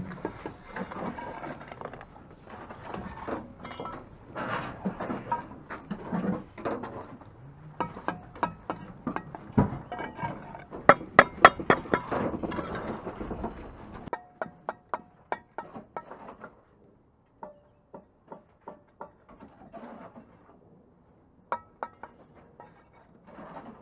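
Steel bricklaying trowel scraping and tapping against mortar and brick: a busy patch of scraping and knocks, a quick run of sharp clinks about halfway through, then sparser single taps.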